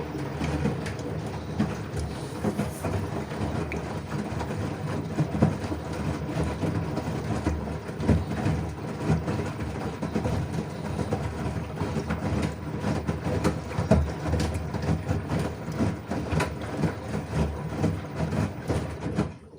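LG washing machine running a wash cycle: a steady mechanical rumble from the turning drum, with irregular knocks and clatter throughout.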